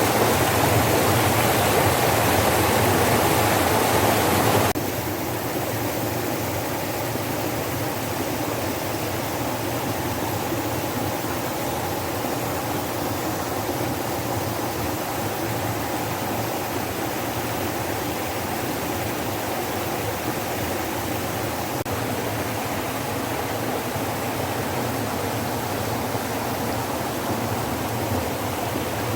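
Valley stream water rushing steadily. About five seconds in it drops suddenly to a quieter, steady flow.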